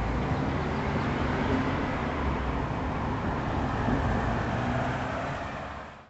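Road traffic: cars driving along the street, a steady rumble, fading out near the end.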